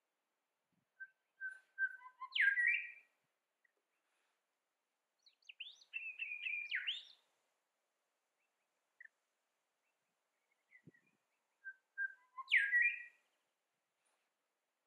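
Grey shrikethrush singing three clear whistled phrases a few seconds apart. Each phrase is a few short notes leading into a louder sweeping note, and the first and last phrases are alike.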